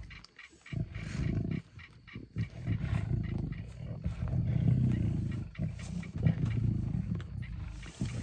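Lions growling at a zebra kill: a low, rough rumble in long stretches with short breaks between them.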